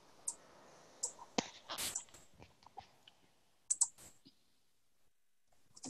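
Faint, scattered short clicks and ticks, with a brief soft puff of noise about two seconds in; the last two seconds are near silent.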